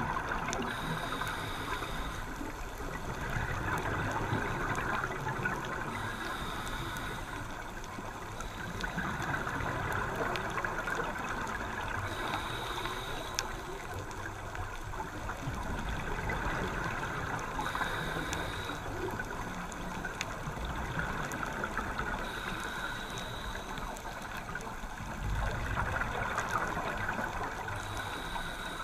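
Scuba diver breathing through a regulator underwater: a short hiss on each breath in, then gurgling exhaust bubbles on the breath out, six breaths in a steady rhythm about five seconds apart.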